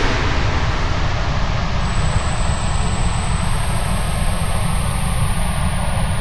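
A steady, loud low rumble with an even hiss over it, unchanging throughout.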